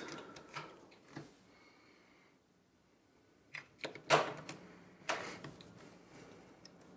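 AA batteries being pressed into the plastic battery compartment of a Yamaha Disklavier remote control: a few light clicks and taps, the loudest about four seconds in.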